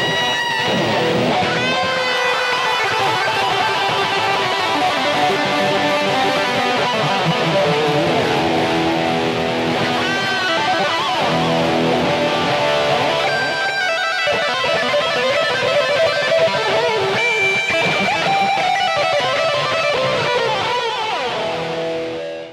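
Electric guitar playing a melodic lead, with sustained notes, string bends and vibrato, that stops abruptly at the end.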